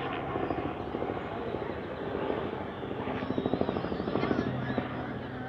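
A low mechanical drone with a fast, even pulsing beat. The pulsing is strongest from about three to four and a half seconds in.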